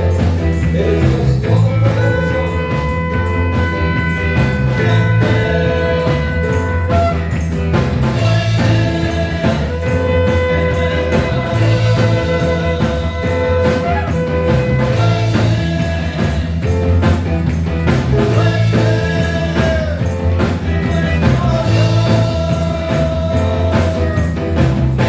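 A band playing a worship song with drums, bass guitar and electric guitar, with long held chords over a repeating bass line and a steady beat.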